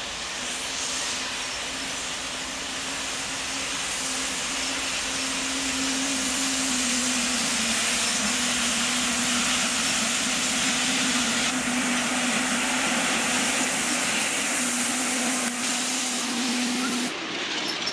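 Miniature steam locomotive hissing steam hard, a steady hiss with a low tone underneath that dips slightly in pitch about seven seconds in; it cuts off suddenly near the end.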